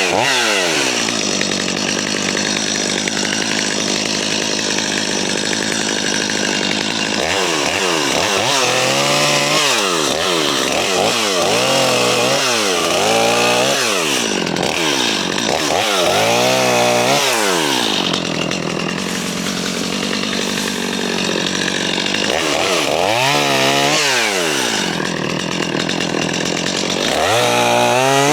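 JCB 55Z mini excavator's diesel engine working its hydraulics. The engine note dips and climbs again and again under load, in runs through the middle and near the end.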